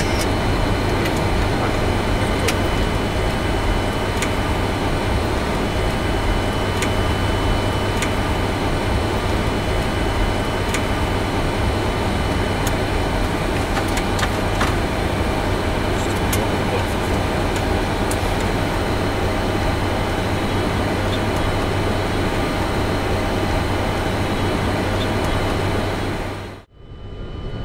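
Steady cockpit noise of a Boeing 747-400F rolling out and taxiing after landing: engine and airflow rumble with a low hum and a few faint clicks. The sound drops out for a moment near the end, then comes back.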